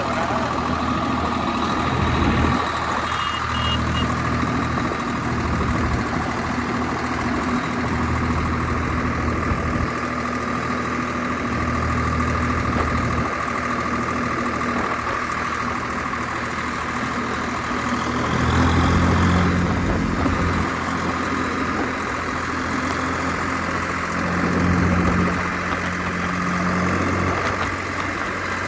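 Swaraj 742 XT tractor's three-cylinder diesel engine running steadily as the tractor drives along the road. Its note swells louder twice in the second half.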